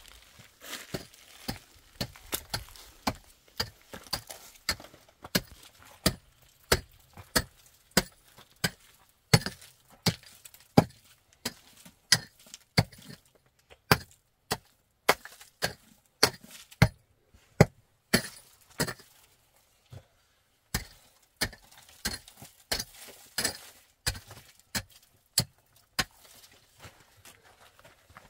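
Repeated sharp strikes of a short-handled hand tool on a hard dirt and gravel floor, about one or two a second, with a pause of a couple of seconds about two-thirds of the way through.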